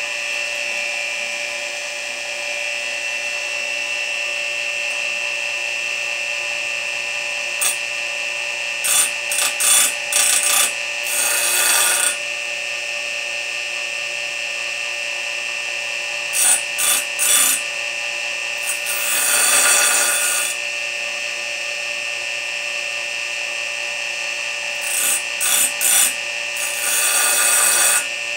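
Bench grinder running with a steady high whine, while the teeth of a sawmill bandsaw blade are touched to the wheel: groups of short grinding hisses, one tooth after another, a few seconds apart.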